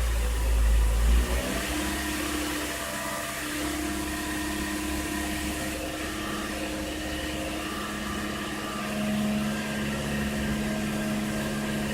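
Toyota Corolla's four-cylinder engine running while warming up, brought a little above idle and held steady. Its pitch steps up slightly about a second and a half in, and it grows a bit louder near the end.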